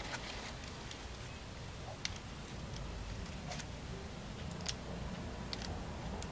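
Crumpled aluminium foil crinkling and snapping under the fingers as a foil form is handled, giving a handful of sharp irregular ticks over a steady low background rumble.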